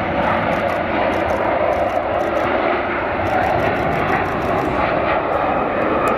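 Airbus A330's twin jet engines at takeoff thrust as the airliner lifts off and climbs away: a steady, loud jet noise.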